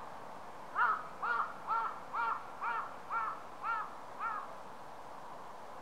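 A bird calling in a quick series of eight short calls, about two a second, over a steady faint background hiss.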